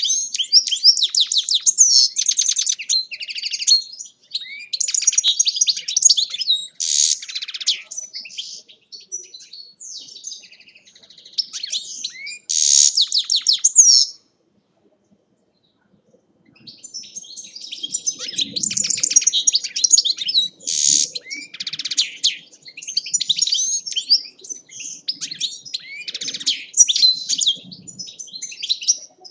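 European goldfinch singing: long runs of fast, high twittering and trilled notes. The song breaks off for about two seconds about halfway through.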